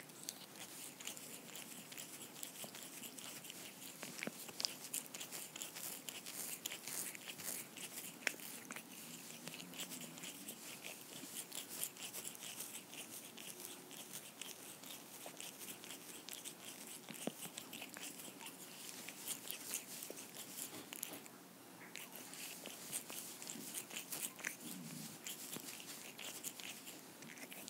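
Kitten grooming close to the microphone: a rapid run of small wet tongue clicks and rasps as it licks its paw and washes its face, with a short pause about three quarters of the way through.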